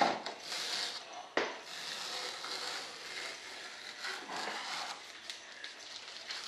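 Hand-tool work on a model jet part: uneven dry scraping noise, with a sharp knock right at the start and another about a second and a half in.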